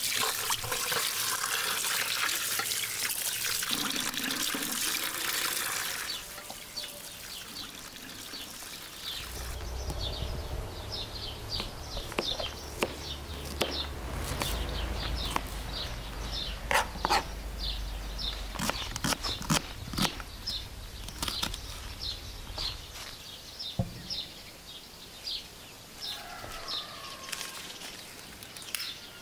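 Water running and splashing over peeled onions in a bowl for about six seconds, then a knife cutting onions on a cutting board, sharp irregular chops over several seconds. Birds chirping in the background.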